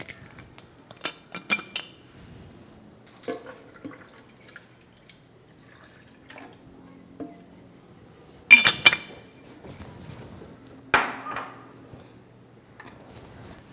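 Milk poured from a bottle into a blender jar, with a few clicks near the start. About two-thirds of the way through there is a loud clatter of dishes, then a single sharp clink that rings on.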